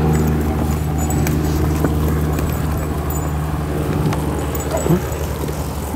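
A steady low engine hum runs on evenly, with a few faint clicks and a short rising squeak about five seconds in.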